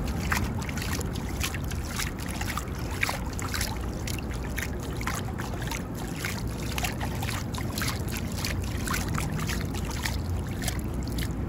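Small waves lapping and splashing against a rocky seawall at the waterline, with irregular little splashes over a steady low rumble.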